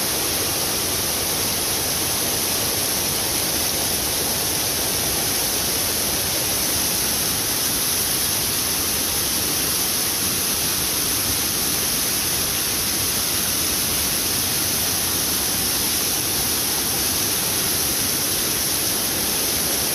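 Steady rushing water, an even hiss that doesn't change.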